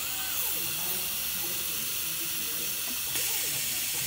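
A steady hiss, louder from about three seconds in, over faint motor whines that rise in pitch, hold and fall again: the drives of a small robotic sorting line with robot arms and conveyors at work.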